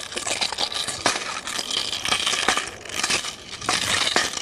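Three-sectional staff being twirled, its metal chain links jangling and clinking continuously, with several sharper clacks.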